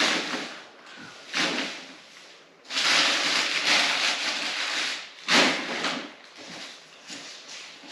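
Rustling and rubbing of things being handled, with a few sharp knocks. The longest stretch of rustling starts about three seconds in, and the loudest knock comes soon after it.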